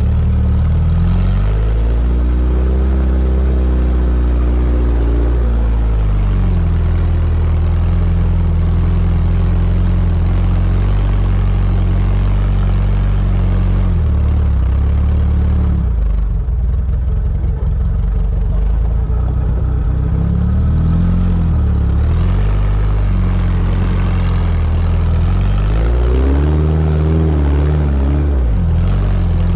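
Sporting trials car engine running under load, its revs rising and falling several times, with a lower, rougher stretch a little past the middle.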